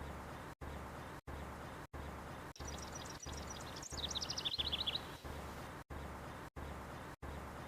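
A small songbird sings one fast trill of about two and a half seconds. Its rapid notes drop from a high twitter to a lower, louder run near the end. Under it a steady background hiss and hum cuts out briefly about every 0.6 seconds.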